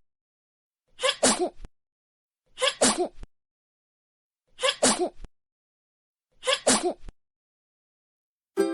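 A person's sneeze, a two-part 'ah-choo', heard four times over with dead silence between; each is identical, the same recorded sneeze played again and again.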